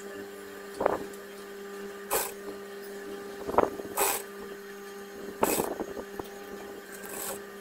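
Sewing machine stitching in short, irregular runs over a steady hum, with fabric rustling as a gathered ruffle is fed under the presser foot.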